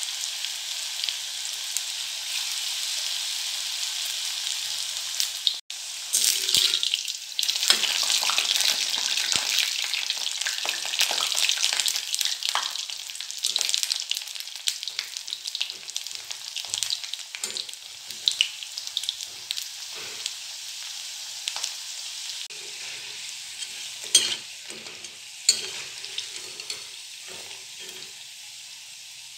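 Semolina fritters deep-frying in hot oil in a metal kadhai: a steady sizzle that turns into a louder crackle after a short break about six seconds in. A metal spatula and slotted spoon scrape and knock against the pan as the fritters are turned and lifted out. The sizzle thins toward the end, with a couple of sharper knocks.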